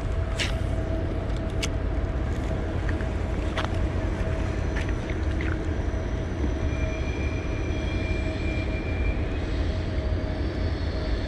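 Steady low rumble of wind buffeting the action camera's microphone, with a faint steady hum and a few light clicks over it.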